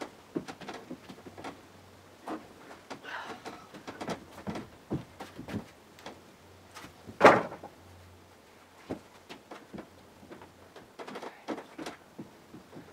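Old weathered wooden floorboards being pried up and handled: scattered wooden knocks, creaks and clatter, with one loud thump of wood about seven seconds in.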